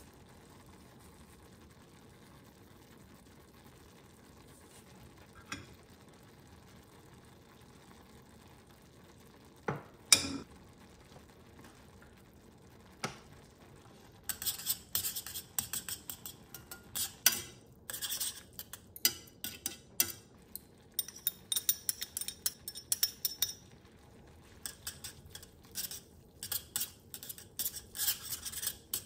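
Metal chopsticks stirring noodles in a stainless steel frying pan, clinking and scraping against the pan in quick, irregular strikes from about halfway in. Before that there is only a low hush with a few single clicks, one of them a sharp knock about a third of the way in.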